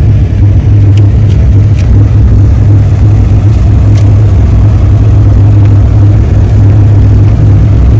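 Truck driving on snowy roads, heard from inside the cab: a steady, loud, low engine and road drone, with a few faint ticks.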